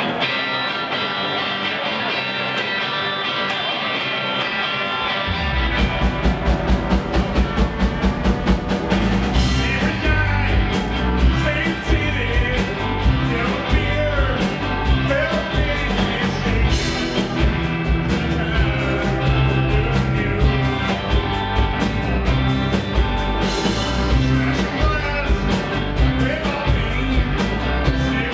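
Live rock band playing a song with electric guitars, bass, drums and vocals. It opens without bass or drums; about five seconds in, the bass and drums come in with a steady beat, and a man sings over the full band.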